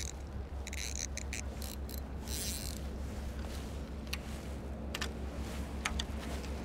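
Short clicks and scrapes from a fishing rod and reel being handled, over a steady low rumble; a few scattered ticks in the first second and a half, a brief hiss a little after two seconds, and single ticks later on.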